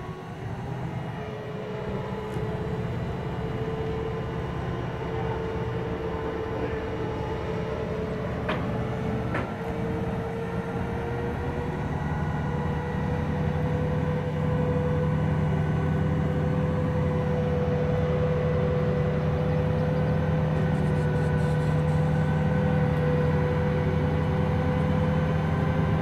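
Heavy diesel truck engine running at low speed as the rig hauling the furnace creeps closer, growing steadily louder.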